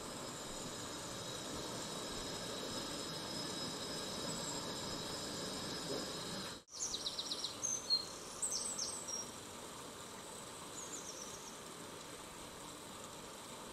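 Steady high-pitched insect chirring over a low hiss, broken by a brief dropout about halfway, followed by a cluster of short, sharp high chirps.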